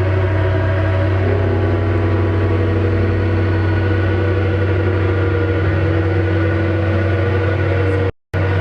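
Live experimental drone music: several steady held tones layered over a loud, deep hum, without beat or change in pitch. It cuts out completely for a split second near the end, then resumes.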